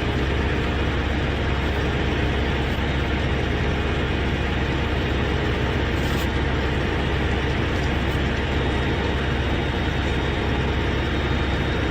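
A heavy vehicle's engine running steadily, with a deep low hum.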